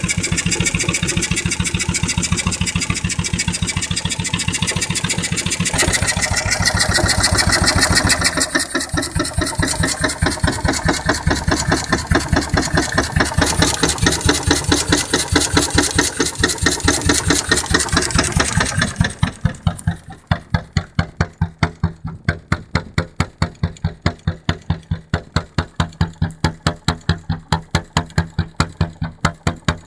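Lidan two-stroke hot bulb crude-oil engine running in a boat, firing in a steady, even beat. About two-thirds through the sound becomes quieter, and each beat stands apart.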